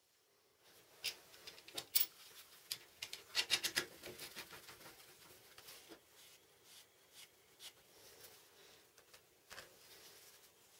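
Light handling sounds of small steel parts: sharp clicks and taps with some rubbing, thickest in a cluster about two to four seconds in, then sparser.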